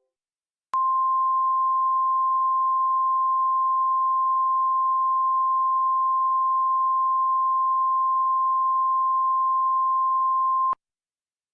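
NOAA Weather Radio 1050 Hz warning alarm tone, the signal that opens a National Weather Service alert: one steady, pure, high beep held for about ten seconds. It starts abruptly just after the beginning and cuts off abruptly near the end.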